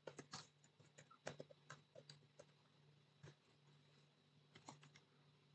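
Faint computer keyboard typing: irregular keystrokes a few at a time, with a pause of about a second past the middle.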